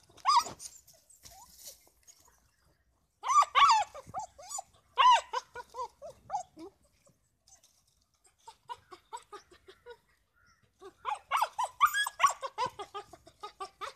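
A dog giving excited play calls: wavering whines and yelps in short groups, the loudest about three to five seconds in and again near the end, with fainter quick yips between.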